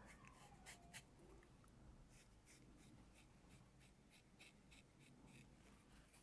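Faint, short dry scrapes, about three a second, from a dermaplaning blade drawn across the skin of the cheek, shaving off fine facial hair.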